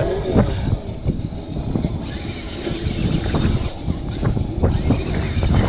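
Wind buffeting the microphone: a loud, uneven low rumble with a few faint clicks mixed in.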